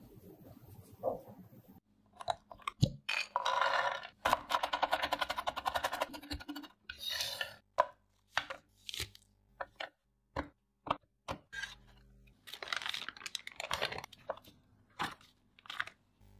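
Close-up sounds of dark chocolate bars being unwrapped and handled on a wooden cutting board. Wrapper paper and foil tear and crinkle in crackly stretches, broken by sharp knocks against the board, starting about two seconds in.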